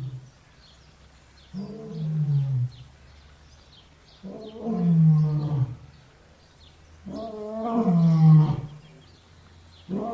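Lion roaring: a series of deep, moaning calls that fall in pitch, each a little over a second long, growing louder one after another, with a fourth starting near the end.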